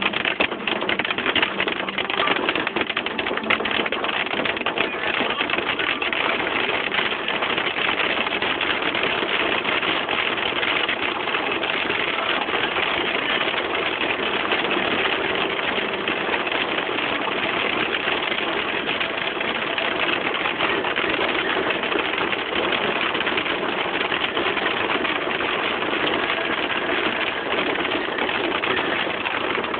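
Hail drumming on a Ford Edge's roof and windshield, heard from inside the cabin: a steady, dense clatter of rapid impacts.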